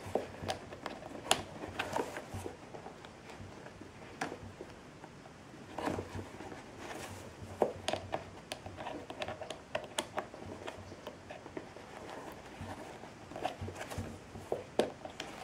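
Handling of a leather handbag: rustling and scattered small clicks and taps as a spoon presses down the prongs of a brass turnlock's back plate inside the flap.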